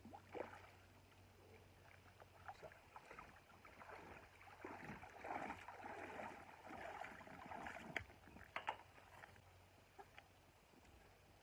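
Faint splashing and sloshing of shallow river water as a wader walks through it and lifts a landing net holding a caught barbel, busiest in the middle, with a few sharp clicks about eight seconds in.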